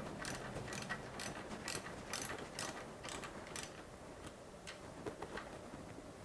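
Socket ratchet clicking as the mini bike's engine mount bolts are snugged down, about two clicks a second, stopping a little under four seconds in, with a few fainter ticks after.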